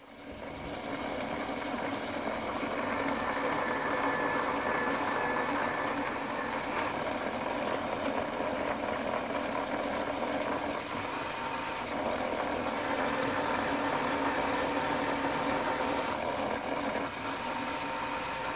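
Electric motor of an RCBS case prep station running steadily, spinning its case-prep tools while .308 Winchester brass cases are held to them for primer pocket uniforming and mouth chamfering.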